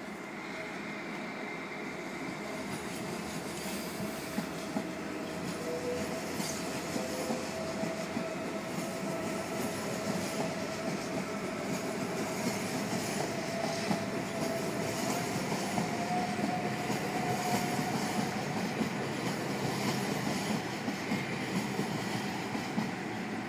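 A train moving slowly through the station, its wheels clicking over rail joints and a thin whining tone riding over the rumble, growing gradually louder as it comes closer.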